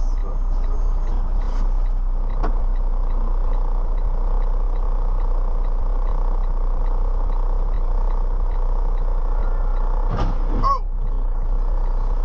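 Steady vehicle running noise with a deep hum, and faint, evenly spaced ticks about twice a second. About ten seconds in there is a short sudden burst, followed by a brief wavering tone.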